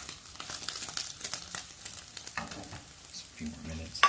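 Scrambled eggs sizzling in a ceramic-coated nonstick frying pan over a gas flame as the pan is tossed and shaken. Near the end the pan is set back down on the burner grate with one sharp clack, the loudest sound.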